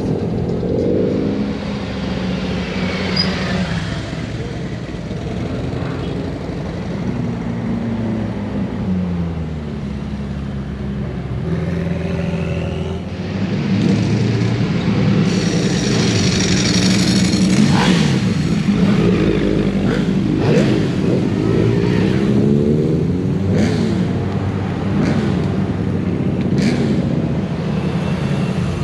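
Car engines running and revving, their pitch rising and falling, with several engines overlapping.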